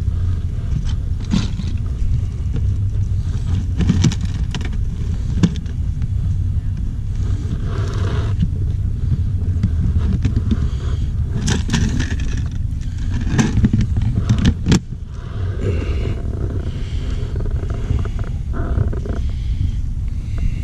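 Steady low rumble of a car on the road, with scattered knocks and rattles.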